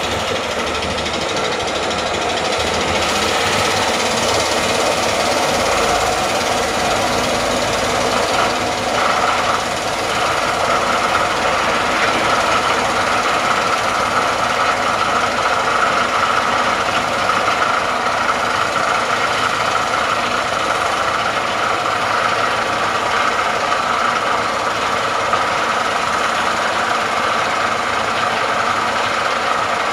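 Hydraulic vibratory hammer clamped to the top of a 1650 mm steel casing, running steadily as it drives the casing into the ground. It makes a loud continuous vibration, and its higher hum grows stronger about ten seconds in.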